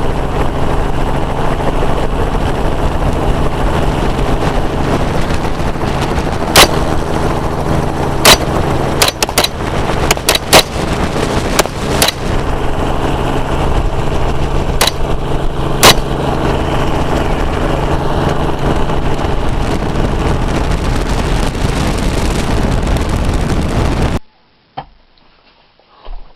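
Helicopter engine and rotor running steadily from inside the aircraft. Gunshots fired from it cut through, about ten in all, several in quick succession between roughly a quarter and two-thirds of the way in. The helicopter noise cuts off abruptly near the end.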